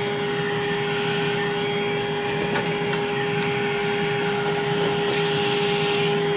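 Milwaukee PACKOUT cordless wet/dry vacuum running steadily with the PACKOUT compact dust separator in line, a constant motor whine over the rush of air through the hose.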